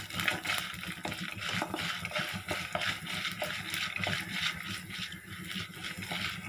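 Urad dal and peanuts sizzling in hot oil in a nonstick kadai while a wooden spatula stirs them, with frequent small crackles and scrapes over a steady hiss.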